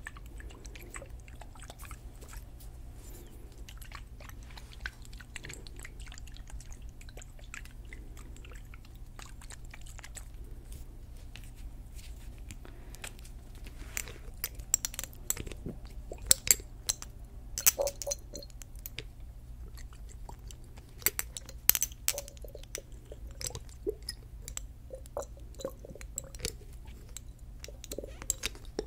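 Close-miked handling of a glass dropper bottle of scalp oil: irregular soft clicks and crackles, sparse at first and denser and sharper from about halfway, over a steady low hum.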